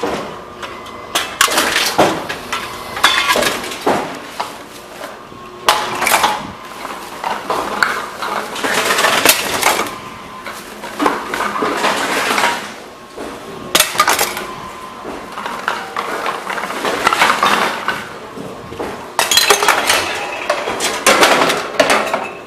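Bottles and cans clinking and clattering as they are fed into Envipco CF-1500 reverse vending machines, with many sharp knocks and several longer stretches of noisy machine handling in between.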